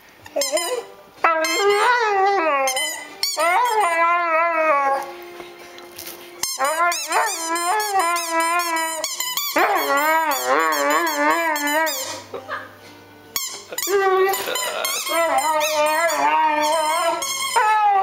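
A large dog 'talking': long whining, howl-like moans that waver up and down in pitch, one after another with short breaks, made with a chew toy held in its mouth.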